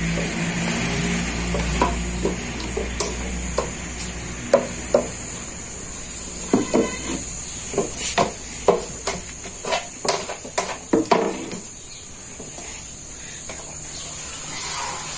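Irregular sharp knocks and scrapes of a wooden stick against a gas-fired iron sac griddle as a thin sheet of yufka dough is laid out and worked on it. A steady low hiss runs underneath and fades about halfway through.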